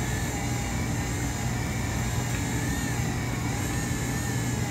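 Cuisinart stand mixer motor running steadily at low speed, a constant hum, as its flat beater works an egg into thick choux paste in a steel bowl.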